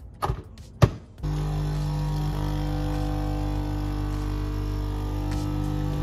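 Nespresso Essenza Mini capsule machine: the lever clicks shut, then about a second in the pump starts and runs with a steady, loud hum as it brews an espresso.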